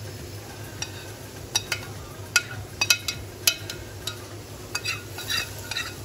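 Semolina being stirred in hot oil in a karahi for halwa: the stirring spoon scrapes and clinks against the metal pan, about a dozen sharp clinks at uneven intervals over a light frying sizzle.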